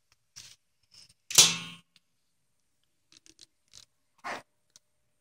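Short rustling and clicking handling noises from gloved hands working with gauze. The loudest is a brief rustle about a second and a half in that fades over half a second, with a few faint clicks and another short rustle near the end.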